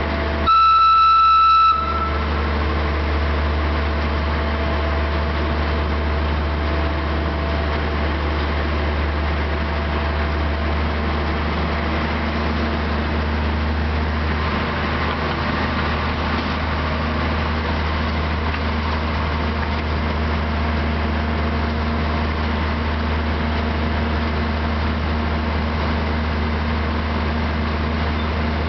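Narrow-gauge diesel locomotive sounding one horn blast of a single note about half a second in, then its diesel engine running steadily with a low drone as the train travels along.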